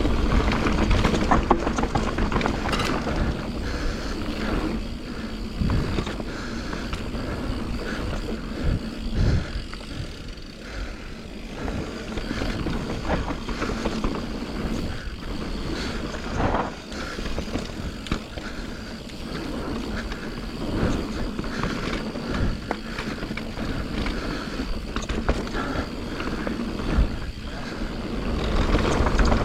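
Santa Cruz Nomad mountain bike ridden along a trail: tyres rolling over dirt with a steady rough rumble, and the bike knocking and clattering at irregular moments over bumps.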